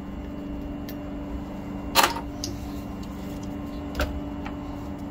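Sharp clicks and knocks of small metal chainsaw parts and hand tools handled on a workbench, the loudest about two seconds in and another about four seconds in, over a steady low hum.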